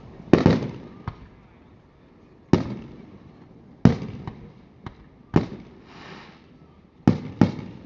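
Aerial firework shells bursting: about seven loud bangs at uneven intervals of a second or two, the last three close together near the end. Each bang trails off in a rumbling echo, with a few fainter pops in between.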